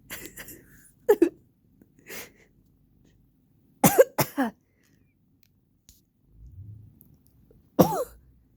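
A person coughing in short, sharp fits: one cough about a second in, two close together around four seconds, and another near the end. The coughing comes from allergies.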